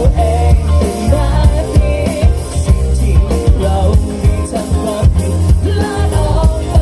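Live pop-rock band playing: a lead singer over electric guitar, bass guitar, keyboard and drums, with a steady drum beat.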